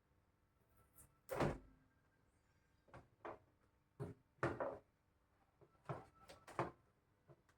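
A series of about seven knocks and clunks from hard objects being handled and set down, the loudest a little over a second in.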